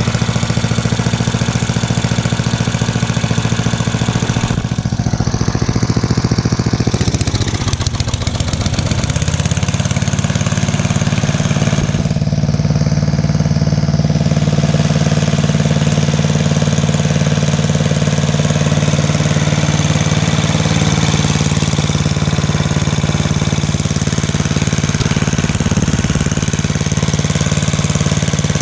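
10 hp Tecumseh HM100 single-cylinder engine of a chipper/shredder running steadily. Its note dips briefly about eight seconds in, then settles back to a steady run.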